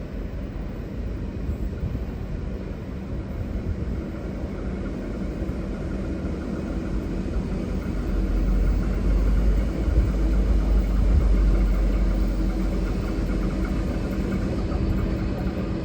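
Diesel engine of a V/Line N class locomotive rumbling low and steady, growing louder about halfway through and then holding.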